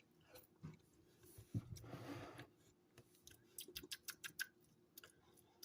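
A person eating a mouthful of mashed potatoes close to the microphone: soft mouth clicks and chewing, a run of quick wet clicks about halfway through, and a soft breathy sound about two seconds in.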